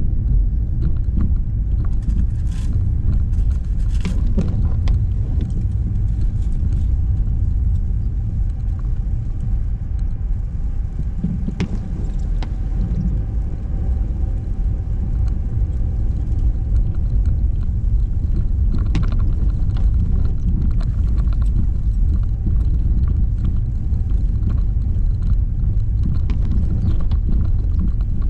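Car driving along city streets: a steady, deep rumble of road and engine noise, with light knocks and rattles now and then.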